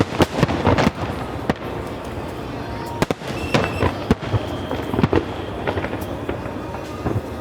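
Fireworks display: aerial shells bursting in a quick cluster of sharp bangs in the first second, then single bangs and crackles about once a second, over a steady background of crowd and music.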